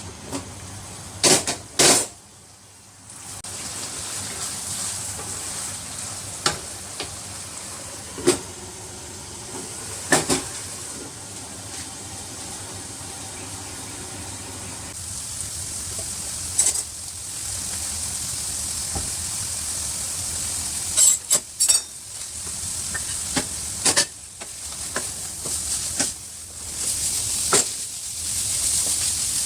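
Tempeh frying in a pan with chili paste, sizzling steadily while a spatula stirs it. A few sharp clanks of the spatula against the pan, loudest near the start and about two-thirds of the way through.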